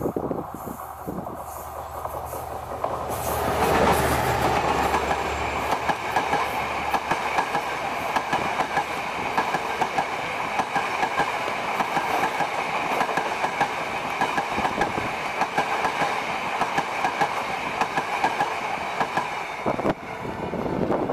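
Sri Lanka Railways M11 diesel locomotive approaching with a low engine drone and passing close by about four seconds in. Its string of ICF passenger coaches follows, rolling past with a steady clickety-clack over the rail joints and a steady high ringing over it. The sound changes abruptly near the end.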